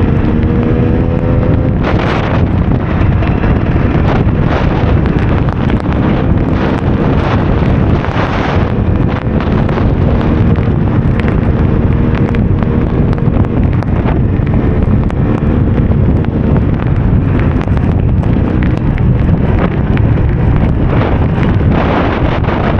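Heavy wind noise buffeting the microphone over a KTM EXC 300's two-stroke single-cylinder engine running on the move, its pitch shifting a little, with a few brief surges of hiss.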